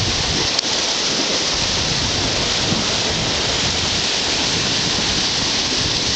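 Ocean surf surging and churning over a rocky shoreline: a steady rush of foaming water with a low rumble beneath. A brief click about half a second in.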